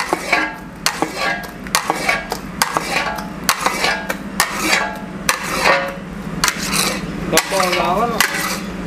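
Steel spatula scraping and clinking against a steel kadhai as thick, grainy kalakand is scooped out into boxes. The scrapes and knocks come in an irregular run over a steady low hum.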